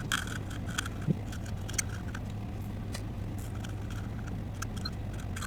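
Soldering iron removing old solder from circuit-board pads with flux paste: faint scattered small clicks and crackles over a steady low hum.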